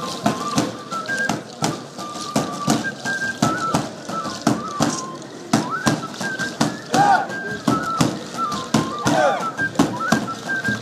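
Andean street band playing dance music: a high flute melody of held, stepping notes over repeated drum beats.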